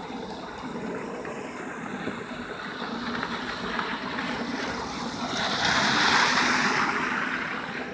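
Floodwater pouring through a storm drain grate as debris is cleared from it: a steady rush that swells louder about five and a half seconds in and eases off near the end.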